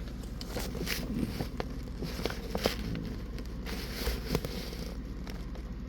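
Rustling and light clicks of plastic parts bags and small kit parts being handled, over a steady low hum.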